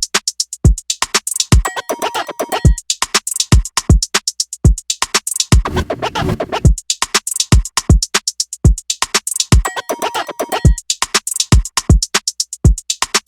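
Background electronic music with a steady, fast beat.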